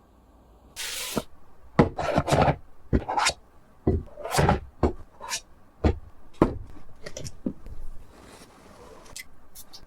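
Hands handling packaging: a string of rustles, scrapes and sharp knocks, with a softer stretch of rustling about eight seconds in.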